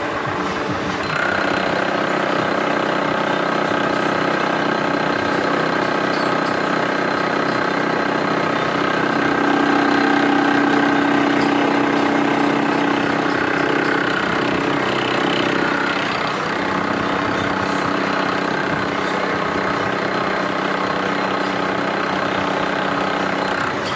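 Milling machine running steadily, with a motor hum and a whine of several tones that come in about a second in. It grows louder for several seconds in the middle and settles back around two-thirds of the way through.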